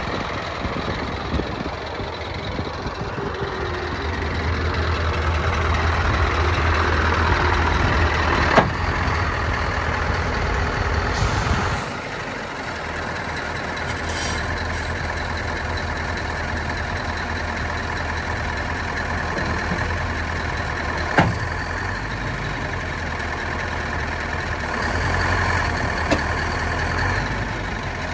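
Scania R500 truck's V8 diesel engine idling steadily, louder for a stretch in the first half. There are short hisses of air about eleven and fourteen seconds in, and a few sharp clicks.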